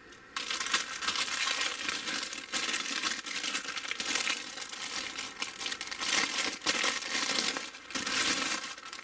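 Clear plastic bags crinkling as the plastic model-kit sprues sealed inside them are picked up and shuffled. It starts about a third of a second in and runs on almost without a break.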